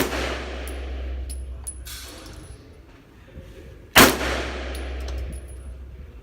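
Two shots from a Glock 19 9mm pistol, one right at the start and one about four seconds later, each followed by a long echoing tail. Light metallic clinks between them, from spent brass casings landing.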